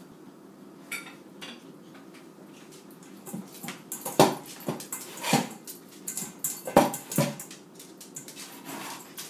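Dog nosing and picking through dry kibble in a metal food bowl, with several short, loud clatters of kibble and bowl about four, five and a half and seven seconds in.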